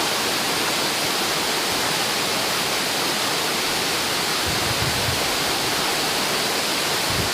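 Steady rushing noise at a constant level, with a few soft low thumps about four and a half seconds in.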